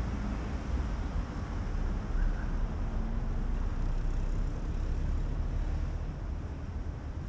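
Street ambience: a steady rumble of city traffic, with low wind rumble on the microphone.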